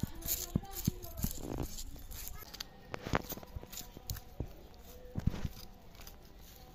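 Snakehead fish being scraped and cut against the edge of a foot-held boti blade: scattered scraping and clicking strokes, with sharper clicks about three seconds in and again a little after five seconds.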